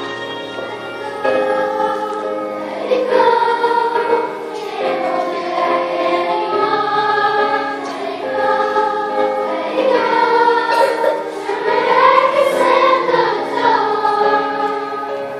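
Large children's choir singing a song, voices holding and shifting sustained notes together.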